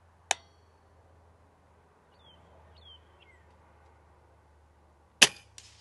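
A .22 BRK Concept XR pre-charged pneumatic air rifle fires once near the end with a sharp crack, followed by a few fainter clicks. Earlier there is a single sharp click shortly after the start, and a bird chirps a few times in the middle.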